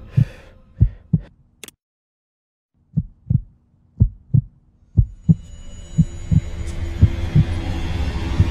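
Heartbeat sound effect: paired low thuds about once a second. A sharp click about a second and a half in cuts everything off for about a second, then the beats return under a low hum and hiss that build from about halfway.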